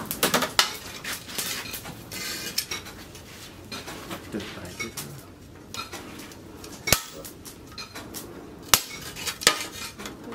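Clinks and rattles of metal and charcoal as a red-hot steel plough-disc blade is drawn out of a charcoal forge and set on a steel post anvil, with a few sharp metal knocks in the second half.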